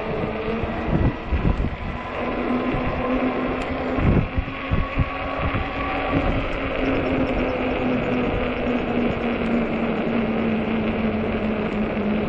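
Ecotric fat-tyre e-bike's 48 V hub motor humming at a steady pitch while riding, over a steady rush of wind and road noise. Wind buffets the microphone in gusts during the first few seconds.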